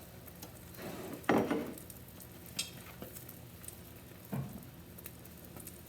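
Beaten eggs frying in butter in a pan with a faint, steady sizzle, and a few scrapes and knocks of a spatula against the pan, the loudest a little over a second in.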